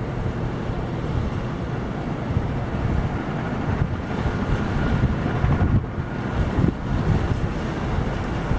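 Dozens of ceiling fans running together: a steady rush of moving air that buffets the microphone, with a faint thin whine in the middle.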